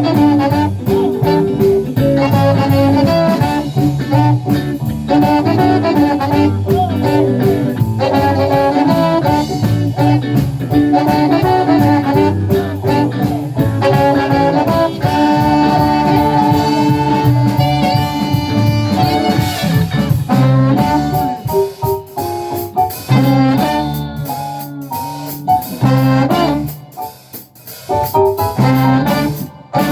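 Live band playing a song at full volume. In the last several seconds the music breaks into short stop-time hits with brief gaps between them.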